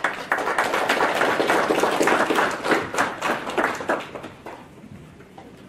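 Audience applauding: many hands clapping at once, thinning and fading out after about four seconds.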